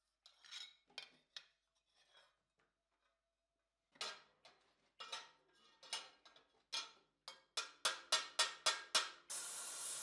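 Light hammer blows on thin steel armour plate, coming quicker and quicker, with a few soft metal clinks before them. About nine seconds in, an oxy-fuel torch starts hissing steadily.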